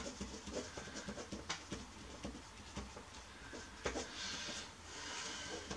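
Pen scratching on paper as an equation is written by hand: short strokes and ticks, then longer scratchy strokes about four and five seconds in.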